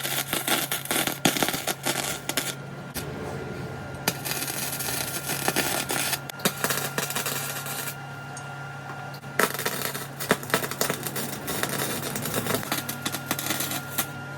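Welding arc crackling as wheel mounts are welded onto a steel frame, in runs of a few seconds with two short breaks, over a steady low hum.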